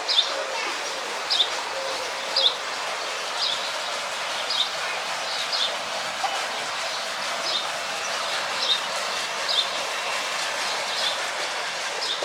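A bird giving a short, high, falling chirp over and over, about once a second, over a steady hiss.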